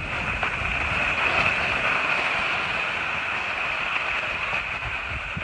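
Skis sliding over snow with a steady hiss, and wind buffeting the microphone with a low, uneven rumble.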